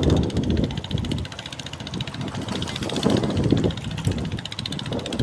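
Boat diesel engine running at a steady beat, with wind gusting on the microphone.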